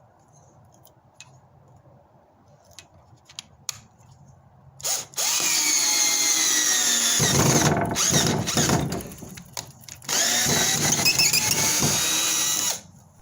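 Black & Decker GoPAK 12V cordless drill driving a screw into a heavy fence post. A short blip comes about five seconds in, then the motor runs for about four seconds, its pitch dropping as it slows under the load. After a brief pause it runs again for nearly three seconds and stops.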